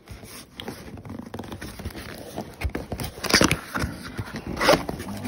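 Packing tape being ripped off a cardboard shipping box, with rasping tears and cardboard scraping. The two loudest rips come a little past halfway and near the end.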